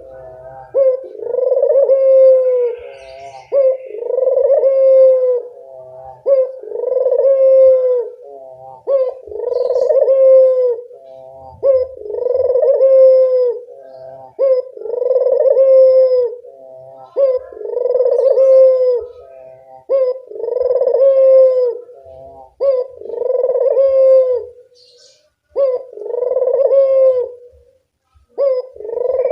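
Burung puter (Barbary dove) cooing over and over: a loud, long, arching coo about every three seconds, with short, quick notes between the coos. This is the busy, persistent calling of a 'gacor' dove.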